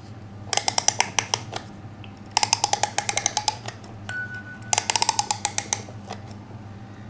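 Clockwork music box being wound by its key: three runs of rapid ratchet clicks, about ten a second, with a single music-box note sounding once between the second and third runs.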